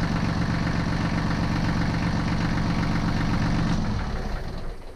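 Kubota L3010 tractor's four-cylinder diesel engine idling steadily, then shut off, running down to a stop about four seconds in.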